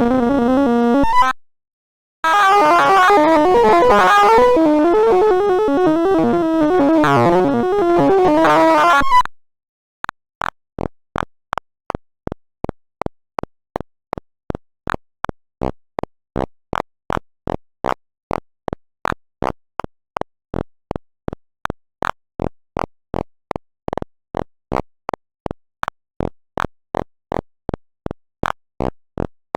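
Synthesized sorting-algorithm sonification tones from the Sound of Sorting program: a fast, dense stream of electronic beeps sliding in pitch, briefly cut off near the start, that stops about nine seconds in. After a short silence, single short blips follow at an even rate of about two a second.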